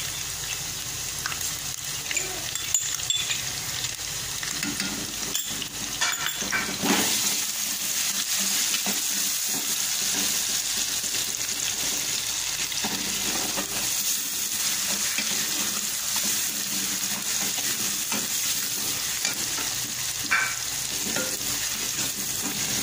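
Ginger-garlic paste and onions sizzling as they fry in hot oil in a metal pot, stirred with a metal ladle that scrapes and knocks against the pot now and then. The sizzling grows louder about seven seconds in.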